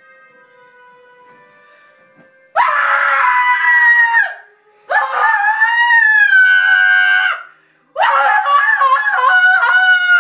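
A man screaming in staged horror at finding a horse head in his bed: three long, loud, high screams with short breaks between them, the first starting about two and a half seconds in.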